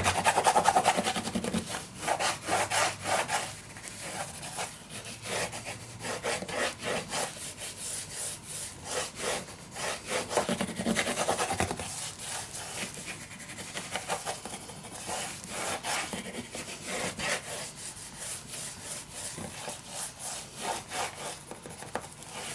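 Bookbinder's linen being burnished down over a glued album spine, rubbed back and forth in quick, repeated strokes.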